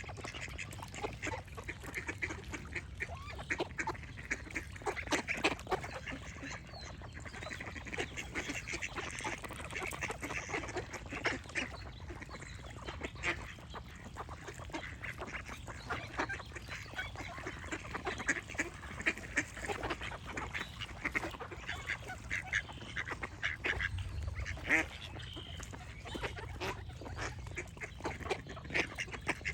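A group of ducks quacking and chattering without pause, many short calls overlapping.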